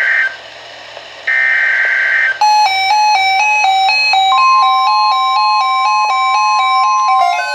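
The last two bursts of an Emergency Alert System SAME header, warbling digital data tones about a second long each, a second apart. About two and a half seconds in, a rapid stepping electronic beep melody starts. From about four seconds in, the steady NOAA Weather Radio 1050 Hz warning tone sounds under it, announcing the tornado watch.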